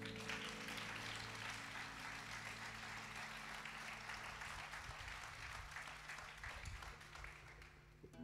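Concert audience applauding at the end of a song, the last low notes still ringing for the first few seconds; the applause fades out slowly toward the end.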